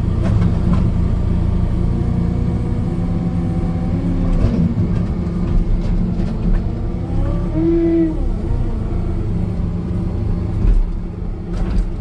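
Compact wheel loader's diesel engine running steadily while lifting a load, its pitch rising and falling as the hydraulics are worked, most clearly about four seconds in and again around eight seconds.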